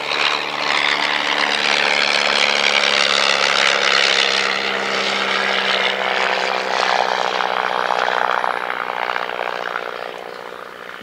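Single-engine piston biplane flying a low pass, its engine and propeller drone loud and steady, then fading as it climbs away in the last few seconds.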